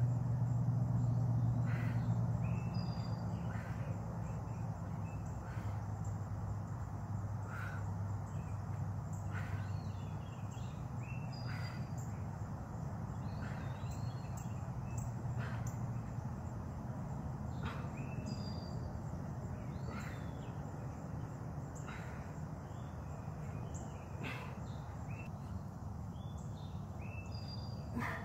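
Outdoor ambience: birds calling and chirping over a steady hiss of insects, with a short sound about every two seconds. A low hum fades out in the first few seconds.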